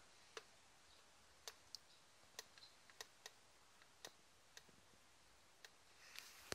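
Faint button clicks on a Grando portable 12-volt tyre compressor's digital control panel: about ten irregular presses as the target tyre pressure is set.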